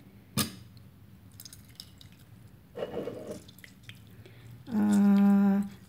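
Faint squishing and dripping of a lemon squeezed by hand into a small ceramic bowl, with a sharp tap just after the start and a short rustle about three seconds in. Near the end a woman's voice holds one steady note for about a second.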